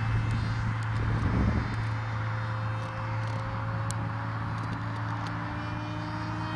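Distant whine of a FunJet's Turnigy 3648 1450kv brushless motor and 6x5.5 pusher prop on 6S as the RC jet flies overhead, over a steady low hum. The pitch climbs slowly from about two seconds in.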